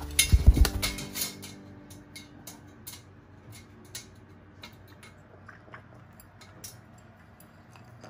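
African grey parrot chick flapping, a few loud thumps in the first second, then scattered light clicks and taps of beak and claws on a plastic tray and its metal chain.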